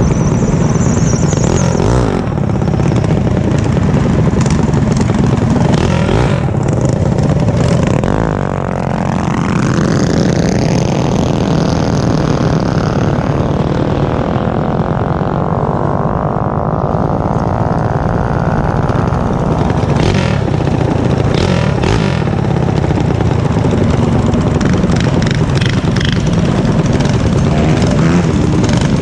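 Mini bike engines running, with one revving up from about eight seconds in and then dropping back down.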